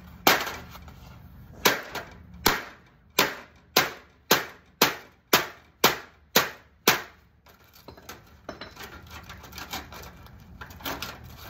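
About a dozen sharp blows smashing into a television set to free a speaker, each ringing briefly, coming faster to about two a second and stopping about seven seconds in. Lighter clicks and rattles of loose pieces follow.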